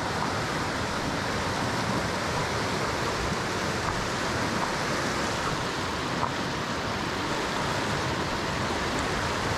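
Rocky forest stream rushing over rapids: a steady, noisy rush of water.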